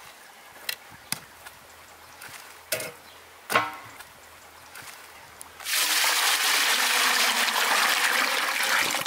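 A few light knocks and clicks, then water pouring or running in a steady hiss for about three seconds, starting suddenly and stopping near the end.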